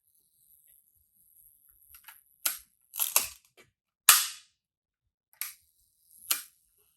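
Minolta Hi-matic 7S 35mm rangefinder camera clicking as its mechanism is worked by hand, a series of sharp clicks with the loudest just after four seconds in. The camera is being tested to see whether it works, and its owner suspects it does not.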